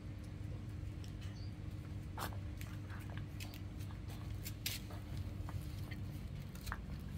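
Puppy eating from a steel bowl: irregular small clicks and crunches of its mouth on the food and the bowl, over a steady low hum.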